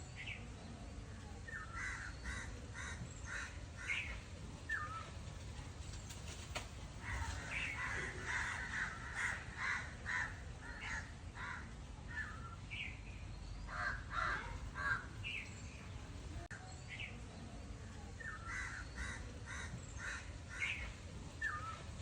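Birds calling in runs of five or six short, harsh notes, with a few single rising calls between, over a steady low hum.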